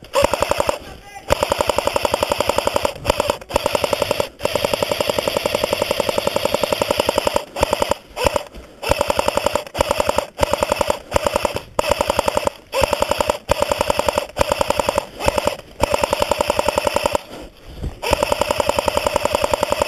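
Cyma AK74M electric airsoft rifle firing full-auto: its gearbox cycling in rapid, even clicks, in repeated bursts of one to three seconds with short pauses between them.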